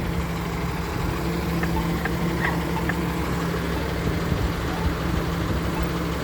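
Steady hum of idling vehicle engines in traffic at a street intersection, with a few faint short ticks in the first half.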